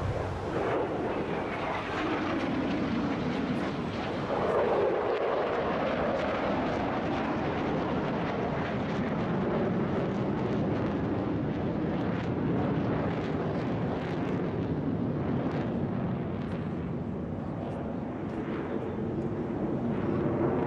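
Jet engine noise from a Thunderbirds F-16 fighter, a steady loud rushing rumble as it flies past and climbs, with the pitch sliding down over the first few seconds of the pass. Scattered crackles come through in the second half.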